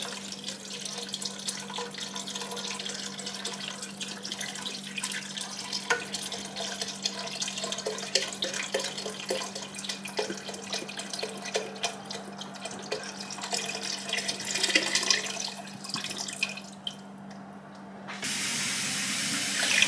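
Broth pouring from a carton into a large enameled pot in a continuous splashing, gurgling stream, tapering off about three-quarters of the way through.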